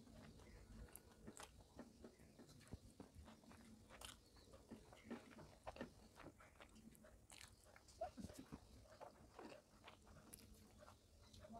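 Faint, close-up chewing and mouth sounds of a person eating rice and dal by hand, with scattered soft clicks and ticks; the sharpest comes about eight seconds in.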